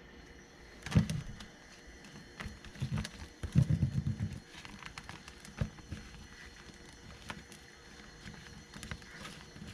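Scattered clicks and knocks of close-up handling, with a heavy low thump about a second in and a burst of low rumbling thumps around three and a half to four seconds in.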